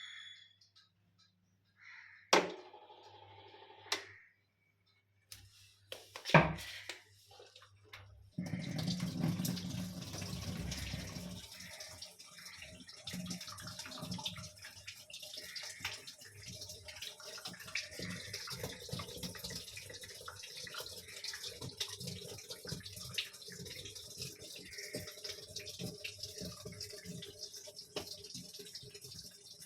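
Water running steadily in an LG top-load washing machine, starting about eight seconds in after a few sharp clicks.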